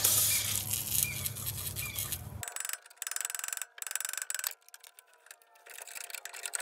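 Rapid metal-on-metal tapping at a seized driveshaft (CV-joint) flange on the transmission, a tool working it loose from old grease and dowel pins. A rough, noisy clatter fills about the first two seconds, then comes a run of quick, even ticks that thins out toward the end.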